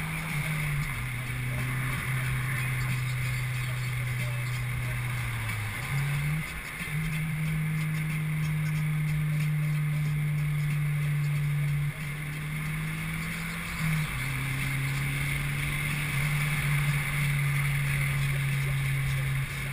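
Mazdaspeed car's turbocharged four-cylinder engine droning inside the cabin at highway speed, over steady tyre and wind noise. Its low hum shifts abruptly between a lower and a higher pitch several times.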